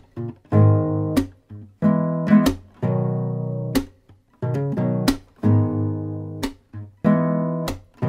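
Acoustic guitar music: strummed chords, each struck sharply and left to ring and fade, a new chord about every second.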